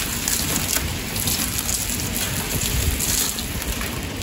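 Old rolled-up sheet flooring being moved across a gritty concrete floor, a steady crackling and rustling.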